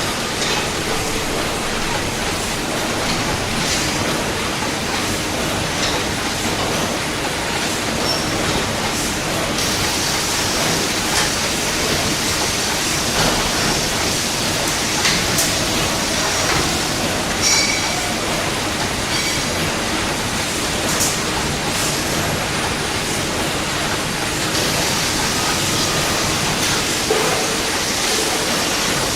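Steady factory machinery noise, with scattered metallic clicks and short high-pitched squeals, the clearest a little past the middle.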